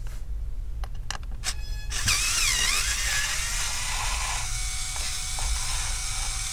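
Electric screwdriver backing out the Phillips screws that hold a laptop's LCD panel: a few clicks, then its small motor whines, wavering in pitch before settling to a steady tone that drops away near the end.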